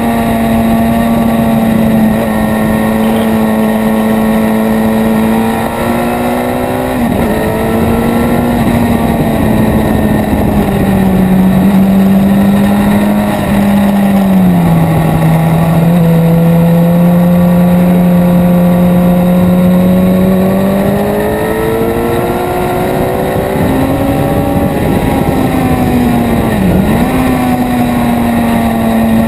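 Suzuki GSX-R750 inline-four engine running hard on track, heard from on board. The engine note holds steady, sinks lower and steadier through the middle, then climbs again. It dips sharply in pitch about seven seconds in and again near the end.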